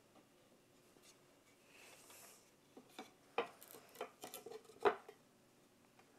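Wooden boards being handled and laid edge to edge on a workbench for a dry-fit glue-up: a few seconds of faint rustling, then a quick run of light wooden knocks and clacks, the two loudest about a second and a half apart.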